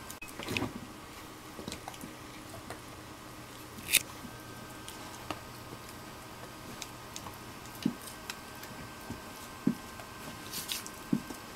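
A Great Dane at play: scattered soft thuds and sharp clicks, with a louder click about four seconds in and a few dull thuds in the second half.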